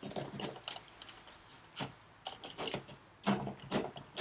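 Crushed ice, finely ground like snow, shifting and scraping inside a plastic blender pitcher as it is tilted and handled, in a scattered series of short scrapes and knocks.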